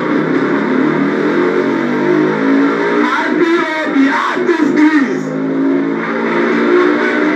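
Music with steady held notes. About three seconds in, a motor vehicle engine revs up and down for about two seconds over it.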